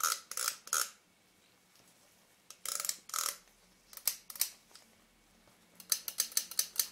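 Small mechanical clicks from handling the reassembled Nikkor 85mm f/2 lens. First a few evenly spaced clicks, then scattered ones, then a quick run of rapid clicks near the end.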